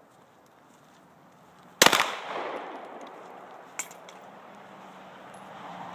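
Glock 17 9mm pistol fired twice in quick succession about two seconds in, the shots echoing off briefly.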